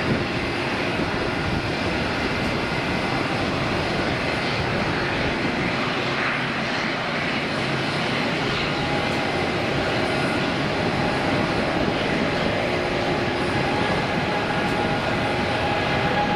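Jet engines of a twin-engine Boeing 777 running at power as it rolls along the runway. It is a steady, loud rumble with high whining tones that grow stronger in the second half.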